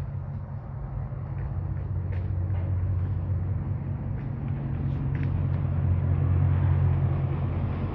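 Steady low electric hum of greenhouse ventilation fans, growing a little louder about two-thirds of the way in.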